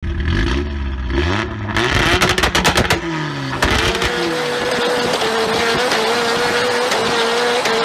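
Car engine revving hard during a drift, its pitch rising and falling, with a quick run of sharp cracks around two to three seconds in. After that the engine is held at steady high revs under a haze of noise.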